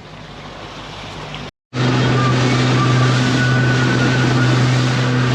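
Motorboat engine running steadily underway: a low, even drone over the rush of wind and water. The sound cuts out for a moment about a second and a half in, and the drone is louder afterwards.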